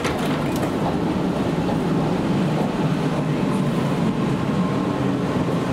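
Interior running noise of a Sydney Trains Waratah A set double-deck electric train underway: a steady low rumble.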